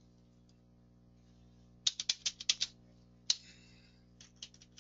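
Computer keyboard typing: a quick run of about half a dozen keystrokes about two seconds in, a single click a little later, then a few more keystrokes near the end, over a low steady electrical hum.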